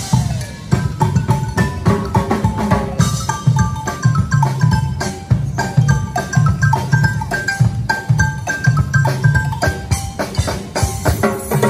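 Music with a steady drum beat and marimba-like mallet percussion playing short melodic notes over it.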